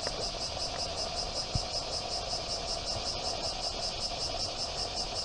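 Insects chirring steadily in a fast, even pulsing rhythm, with one soft thump about a second and a half in.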